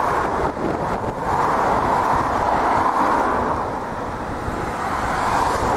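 Steady rushing of wind and road traffic picked up from a moving bicycle, swelling a little now and then.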